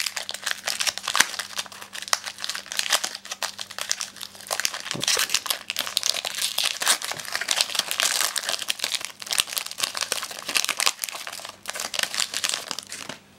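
Foil wrapper of a Pokémon card booster pack crinkling and tearing as it is handled and ripped open by hand, a dense run of crackles that goes on throughout.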